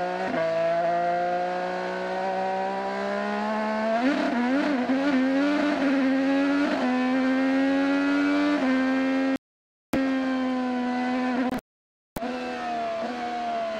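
An IndyCar's twin-turbo V6 engine at speed, heard from the onboard camera on a wet track with slick tyres. Its pitch holds and slowly climbs, then wavers unsteadily for a few seconds as the revs flare and settle. The audio cuts out twice, briefly, near the end.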